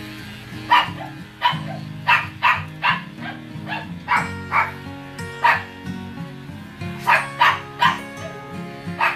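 A dog barking repeatedly, about fourteen short sharp barks in irregular runs starting about a second in, over background music with steady held notes.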